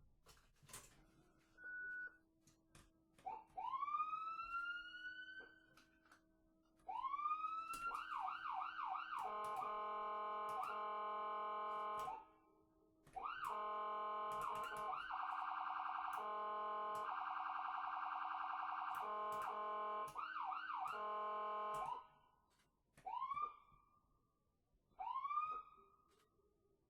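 Electronic ambulance siren cycling through its patterns. It starts with single rising whoops, then rapid yelps, then long stretches of a steady blaring tone broken by short clicks. A few short rising whoops near the end fade away.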